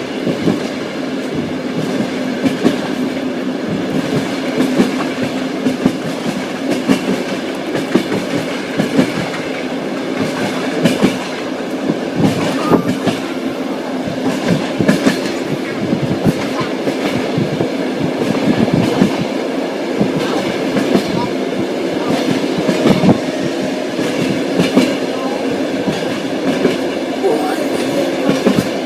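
Railway carriage wheels clacking over rail joints, with the steady running rumble and hum of a moving train. The knocks come in quick, irregular clusters.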